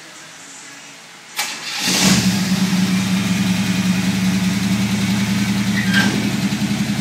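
A 1964 Chevrolet Impala's engine starting up about a second and a half in, then settling into a steady idle. A light knock about six seconds in as the hood is shut.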